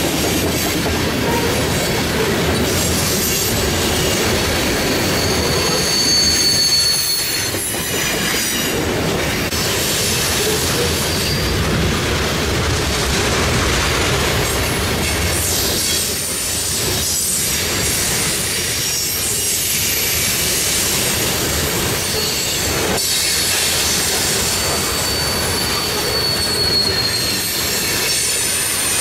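A train of BNSF covered hopper cars rolling past on curved track: a steady rumble and clatter of steel wheels on rail, with high-pitched wheel squeal on the curve that comes and goes, strongest in the first several seconds and again near the end.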